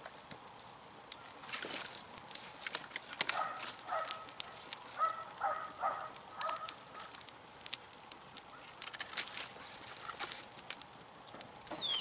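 Small campfire of dry brush and fatwood crackling and popping as sticks are laid on it, with sharp snaps scattered throughout. A few short repeated animal calls sound in the middle, and a bird chirps once at the end.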